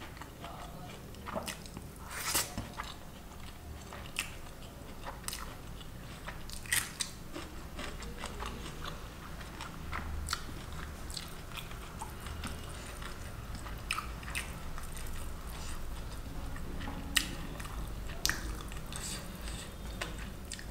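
Close-up mouth sounds of a person chewing a mouthful of rice and paneer curry eaten by hand, with wet smacks and sharp clicks scattered irregularly throughout.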